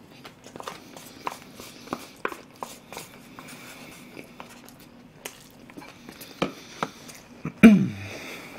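Close-miked eating: chewing and lip smacks, with scattered clicks of chopsticks against a small bowl. About seven and a half seconds in, a brief low vocal sound falls in pitch.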